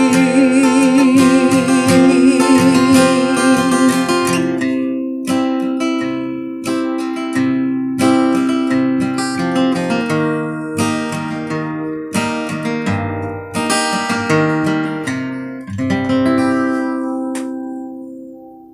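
Acoustic guitar playing the ending of a song: chords strummed one after another, each ringing out, growing quieter and fading away near the end. Over the first few seconds a last sung note is held with vibrato.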